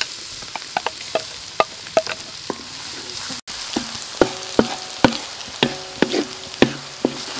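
Chopped garlic sizzling in hot oil in a steel wok while a wooden spatula stirs it, knocking and scraping against the wok. In the second half several of the knocks leave the wok ringing briefly.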